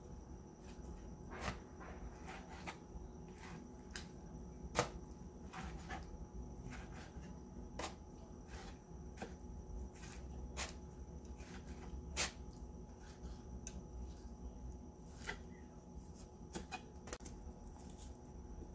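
Kitchen knife chopping soft roasted green peppers on a wooden cutting board: irregular knocks of the blade against the board, about a dozen, two of them louder, at about five and twelve seconds in.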